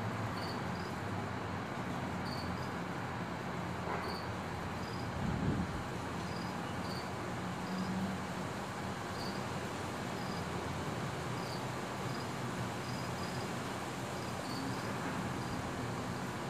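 Crickets chirping: short, high chirps about once a second over a steady background hiss, with a brief low thump about five seconds in.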